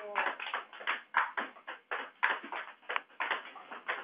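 Table tennis ball clicking against paddles and the table in quick succession, about four or five hits a second, as in a fast practice rally.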